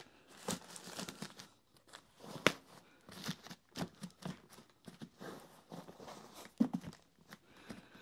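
Rustling and crinkling of a thin vacuum dust bag being fitted and smoothed over the rim of a Makita DVC150L tank, with light handling knocks and one sharp click about two and a half seconds in.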